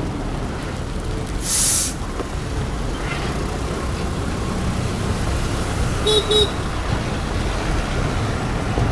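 Steady road-traffic rumble heard from a scooter riding through city traffic. About a second and a half in there is one loud, short hiss, and just after six seconds a vehicle horn gives two quick beeps.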